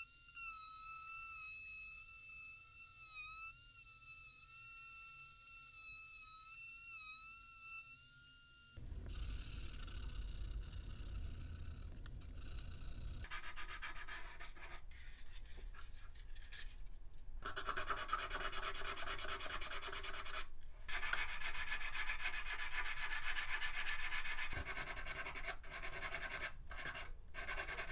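A rotary tool with a small sanding drum runs with a steady high whine as it grinds balsa wood, stopping about nine seconds in. After that a hand file scrapes the balsa in repeated strokes.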